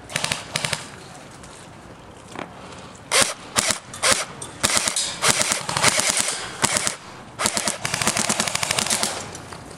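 Airsoft guns firing in rapid full-auto bursts: a short burst about a second in, then longer strings of quick shots with brief pauses through most of the rest.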